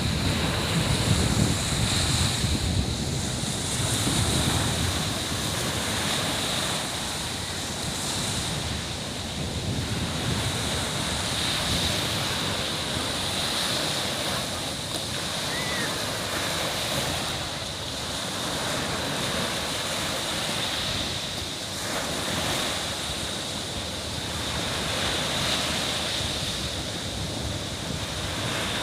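Sea waves washing onto a beach, the surf swelling and easing every few seconds, with wind buffeting the microphone, strongest in the first few seconds. A steady high-pitched tone sits over the surf.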